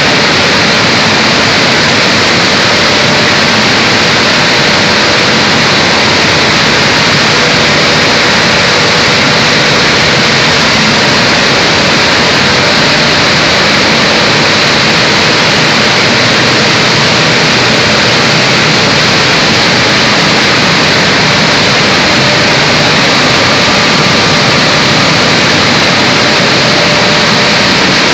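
Rice milling plant machinery running: a loud, steady mechanical din that does not change, with a faint hum of steady tones beneath it.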